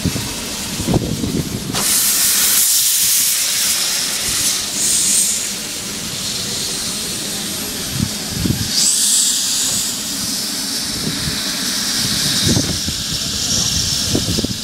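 Narrow-gauge steam locomotive standing with steam hissing from it, rising in several loud bursts and easing back between them, with a few short low thumps.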